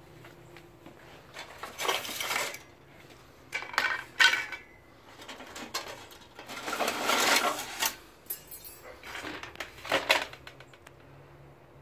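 Clattering and scraping of stored junk (metal poles, plastic lids and a plastic crate) being shifted by hand and knocking together, in four separate bursts, the longest a little after the middle.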